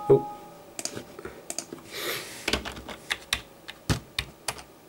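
A sharp knock at the start, then irregular clicking of a computer keyboard and mouse, about a dozen clicks, with a short rustle about two seconds in.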